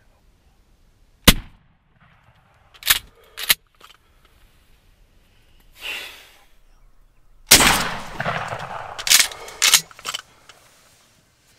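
A single sharp shotgun shot fired inside a hunting blind about a second in, followed by a couple of smaller clicks. Later, a longer loud flurry of rustling and knocks lasting about two seconds.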